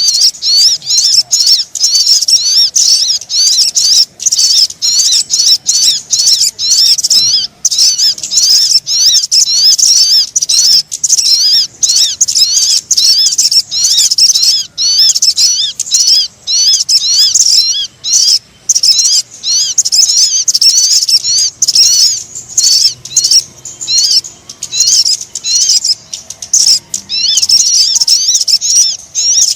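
Sogon bird lure call: a loud, dense stream of quickly repeated high-pitched chirps, each bending up and down, broken by brief gaps about every second.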